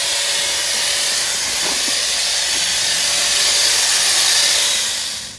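Electric angle grinder running free at full speed off the work, a steady motor whine with a rushing hiss. It cuts off suddenly near the end.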